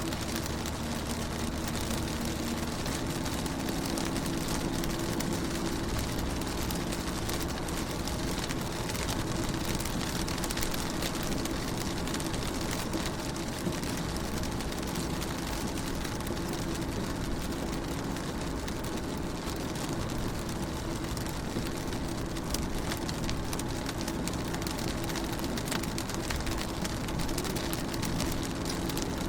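Rain pattering steadily on a car window, with a steady low hum underneath.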